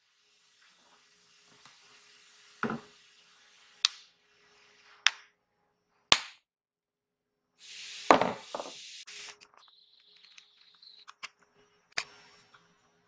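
Hammer striking a hand-held high-speed-steel combination marking stamp, punching characters into a metal sheet. About seven separate sharp metallic knocks come at uneven intervals of roughly a second, with a stretch of hiss between some of them.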